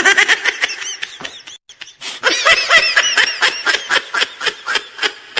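Laughter sound effect: a rapid, choppy snicker, in two runs with a short break just under two seconds in.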